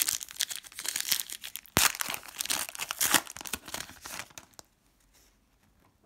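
Trading-card pack wrapper being torn open and crinkled by hand, a dense run of crackling and rustling that stops about four and a half seconds in.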